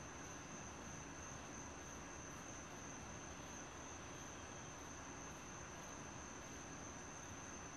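Night insects, crickets, trilling steadily in one continuous high note over a soft even hiss, with fainter, higher pulses recurring about once a second.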